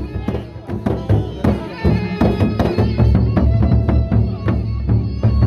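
Sasak gendang beleq ensemble playing: big double-headed barrel drums struck by hand and stick in a fast, dense rhythm with deep booming strokes, under steady ringing tones.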